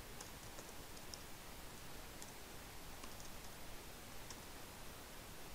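Faint, irregular clicks of a computer keyboard being typed on, over a steady low hiss.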